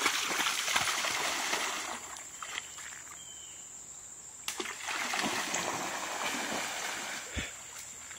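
Water splashing as a dog and a person wade through a shallow creek, in two stretches: the first couple of seconds and again from about four and a half seconds in, with a single sharp knock near the end.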